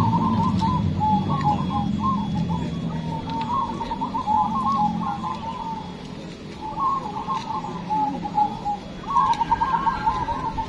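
Many caged zebra doves cooing together, their phrases overlapping in a continuous chorus, with a brief lull a little past the middle.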